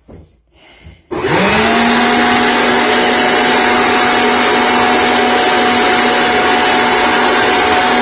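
Corded electric leaf blower switched on about a second in, its motor whine climbing quickly and then holding steady under a loud rush of air as it blows out a dryer vent duct.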